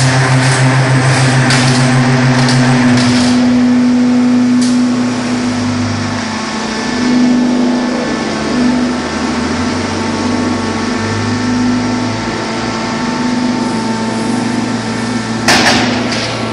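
Concrete pipe machine running: a steady motor hum with a strong low tone that changes pitch about three seconds in. Scattered knocks in the first few seconds and a loud clatter near the end.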